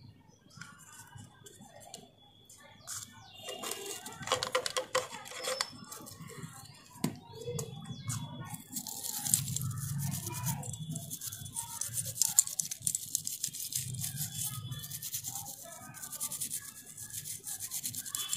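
Toothbrush scrubbing the metal rotary hook (shuttle) of an industrial sewing machine with oil: a fast, dry, scratchy brushing that sets in about nine seconds in and goes on steadily. Before that there is a brief scratchy rustle of handling.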